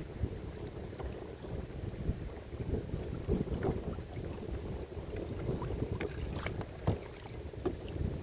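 Wind buffeting the microphone on a small fishing boat, a gusty low rumble, with a few light knocks and clicks, mostly after the middle.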